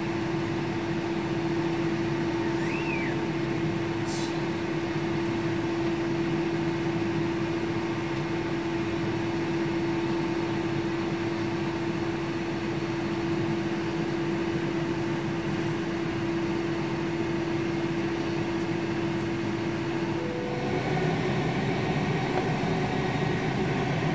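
Steady jet airliner cabin noise while holding on the ground: idling engines and air-conditioning hiss with a steady low hum. About twenty seconds in the hum stops and the noise grows slightly louder.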